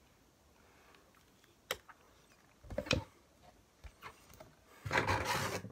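Packaging being handled: a clear plastic tray insert and cardboard box give a few sharp plastic clicks, then a longer crinkling rustle near the end.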